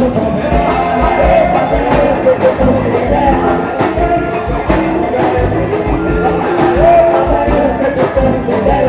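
Brazilian batuque-style swingueira music: a steady, driving drum and bass beat with a melodic line over it.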